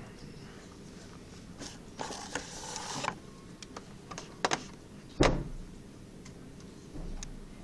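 Handling noise from phones held in the hand: a rustle about two seconds in, a few light clicks, then one sharp knock a little after five seconds.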